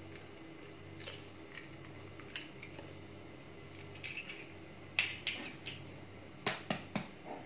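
A few sharp clicks and taps of an egg being cracked open over a plastic bowl of batter and the shell handled, with two louder knocks in the second half.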